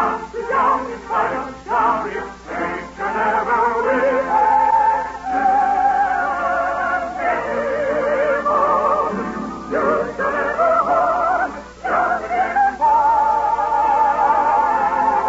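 Operetta singing with strong vibrato in an old radio broadcast recording: a high voice moves through short phrases, then holds a long high note near the end.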